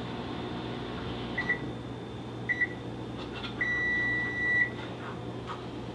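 Microwave oven beeping: two short beeps, then one long beep about a second long, over a steady low hum.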